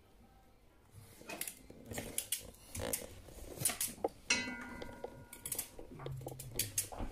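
Metal cooking utensils and pans clattering in a run of clinks and knocks, with one ringing metallic clang about four seconds in.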